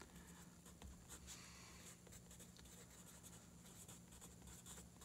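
Faint scratching of a colored pencil writing words on sketchbook paper, in quick irregular strokes.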